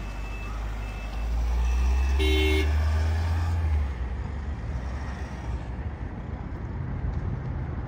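A vehicle's engine and road rumble heard from inside the cabin as it drives off. The low rumble builds, then drops back about four seconds in, and there is a short electronic beep a little over two seconds in.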